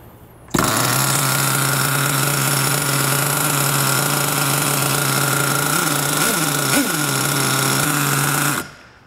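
Nitro RC buggy's glow-plug engine catches about half a second in and idles steadily, with three quick blips of revs a little past the middle, then is shut off suddenly near the end. It is a pretty decent idle from a cold engine not yet up to operating temperature.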